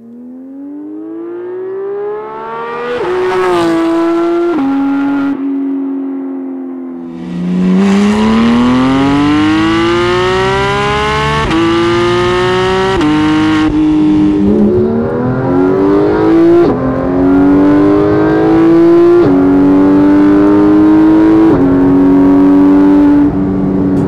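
Porsche 991 GT3's flat-six engine through an Armytrix valvetronic exhaust, accelerating hard. First it drives past, rising in pitch and then dropping as it passes. Then, heard close to the tailpipes, it revs up in one long climb and changes up through several gears, each shift a sudden drop in pitch and a fresh climb.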